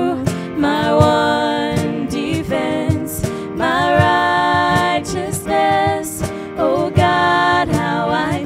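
Worship song: a voice singing long, held notes over instrumental accompaniment.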